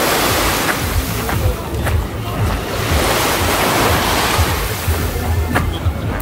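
Small waves washing up and breaking on a sandy beach, the surf rising and falling in slow swells every couple of seconds.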